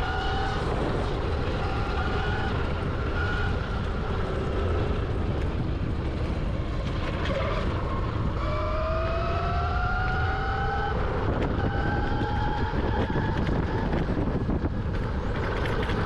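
Electric dirt bike motor whining as it rides, its pitch rising steadily for a few seconds about halfway through as it speeds up, over a steady rumble of wind and riding noise.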